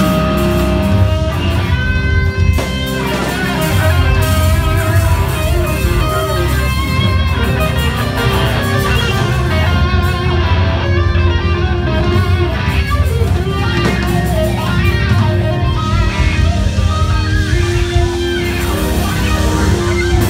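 Live band music led by electric guitar, played loud with bass underneath. The guitar plays single-note lines with held notes.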